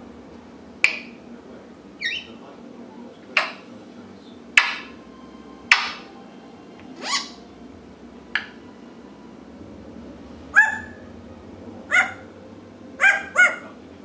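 African grey parrot giving a run of short, sharp calls, roughly one a second, with a quick double call near the end.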